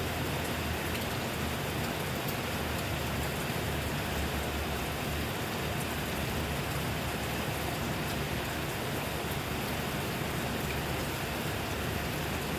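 Steady rainfall, a dense even hiss of raindrops with scattered small drop ticks.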